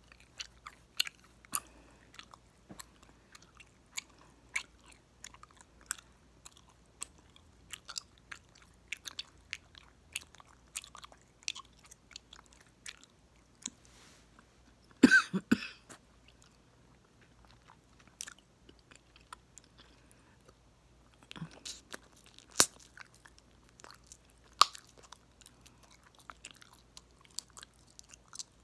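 Close-miked chewing of gum with frequent sharp, irregular snaps and pops of the gum. A louder burst of pops comes about halfway through.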